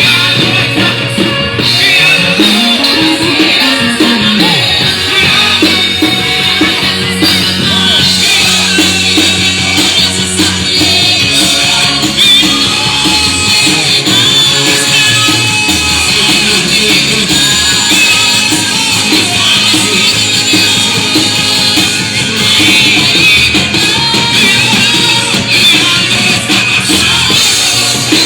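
Live worship band playing a loud, upbeat rock-style song driven by a drum kit, with singing over it.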